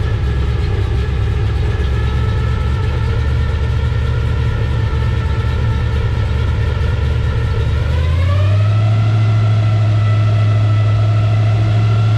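Tour boat's motor running steadily, then picking up speed about eight seconds in: its pitch rises and settles at a higher steady note.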